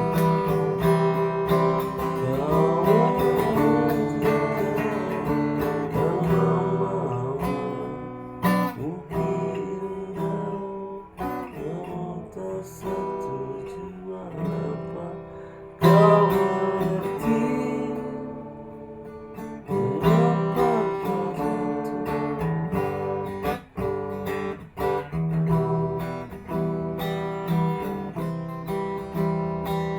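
Acoustic guitar music: a strummed accompaniment carrying on through an instrumental break between sung verses, with no singing.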